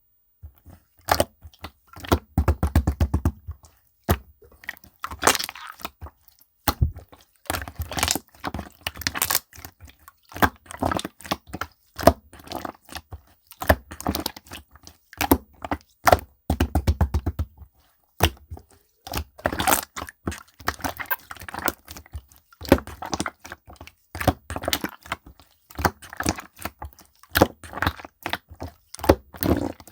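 Slime being squeezed, pressed and stretched by hand, giving dense runs of crackling, popping clicks, with dull low thuds twice.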